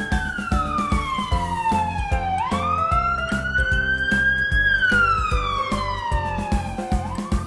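Wailing siren sound effect that rises quickly and then slides slowly down in pitch, twice, starting to rise again near the end. It plays over children's background music with a steady beat.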